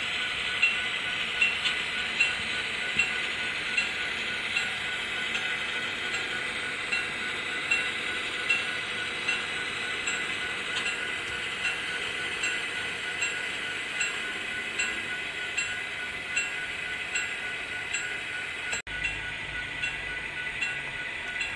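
Model passenger train running along the layout track: a steady running hiss with light regular clicks about every three-quarters of a second. The sound briefly drops out near the end.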